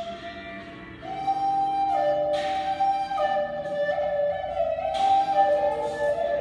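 Wooden Native American-style flute playing a slow blues melody in long held notes that step up and down, over a slow guitar blues backing track, in a stone stairwell.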